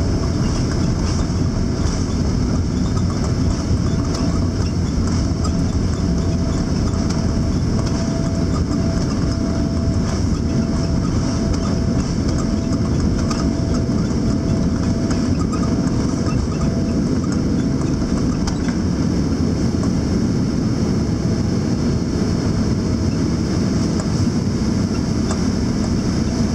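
Steady, loud rumble of a Boeing 787-8's Rolls-Royce Trent 1000 engines and airflow, heard inside the cabin during takeoff. A faint steady hum under it stops about two-thirds of the way through.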